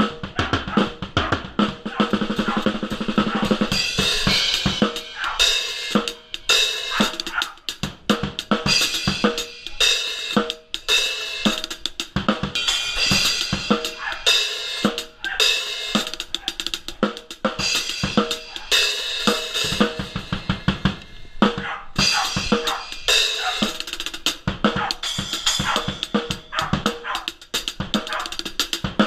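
Drum kit played in a steady groove: kick, snare and hi-hat, with cymbal crashes coming in about four seconds in and recurring every second or two.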